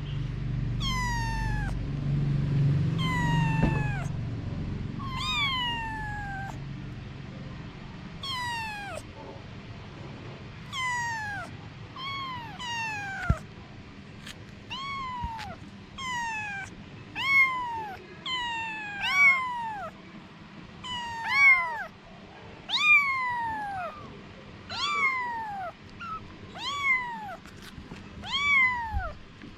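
Kitten meowing over and over, high-pitched calls that each fall in pitch, about one every second or two, coming faster and louder in the second half.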